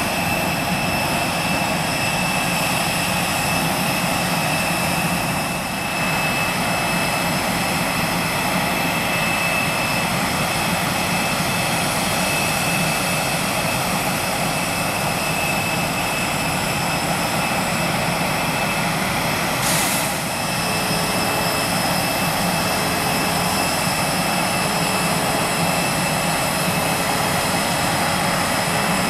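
American Eagle Embraer ERJ-145 regional jet's turbofan engines running on the runway, with a steady high whine over the roar. About six seconds in this gives way to steady jet turbine noise of about the same loudness, with a brief hiss at about twenty seconds, after which a low beep repeats about every two seconds.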